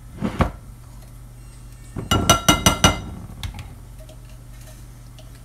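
A mini food chopper's bowl knocked against the rim of a ceramic bowl to empty out blended tomato: a short knock just after the start, then a quick run of about five ringing clinks about two seconds in.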